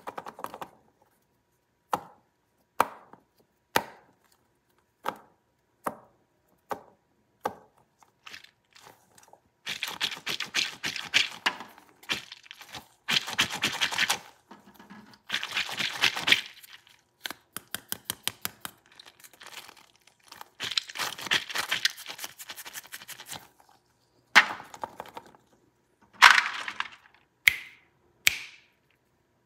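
Squishy mesh spider stress toy filled with water beads being handled and squeezed: single sharp taps about once a second at first, then several stretches of dense wet crackling as it is squeezed, and a few sharp knocks near the end.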